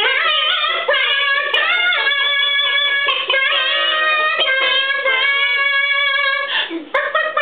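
A small group of voices singing a cappella in close doo-wop harmony, holding chords that shift every half second to a second.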